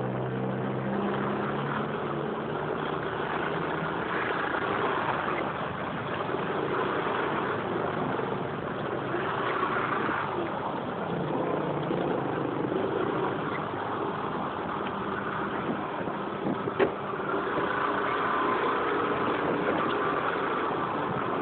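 Scooter and surrounding traffic engines running in slow city traffic. A low steady engine hum fades after the first few seconds into an even rushing road noise, with one short sharp knock about three-quarters of the way through.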